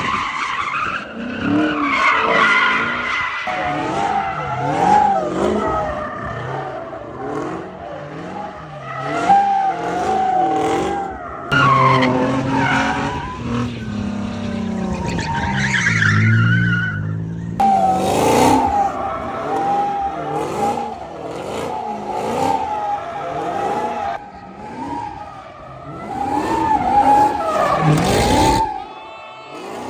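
Car engines revving hard with tires squealing and skidding; the pitch keeps rising and falling throughout.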